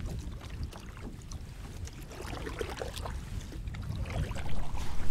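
Canoe paddle strokes dipping and splashing in lake water, against a low rumble of wind on the microphone, growing louder near the end.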